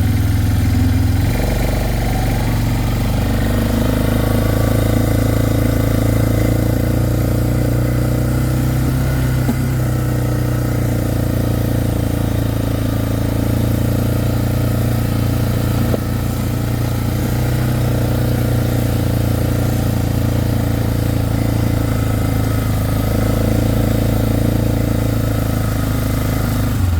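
Four-wheeler (ATV) engine running steadily under way, a constant loud drone with slight changes in pitch near the start and end as the throttle shifts.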